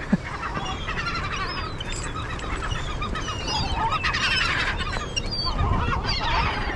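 Seagulls calling over one another in many short overlapping squawks as they compete for discarded crab bait, with wind rumbling on the microphone.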